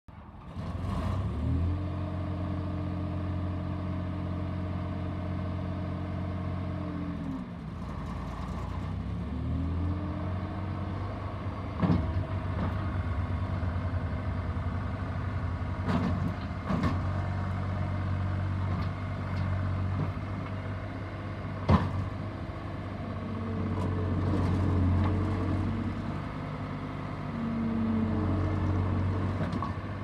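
New Holland LT185.B skid steer loader's diesel engine running and working: it revs up about a second in, drops back briefly around a quarter of the way through, then runs at high revs while the loader arms lift and the machine moves. A few sharp metallic clanks come in between.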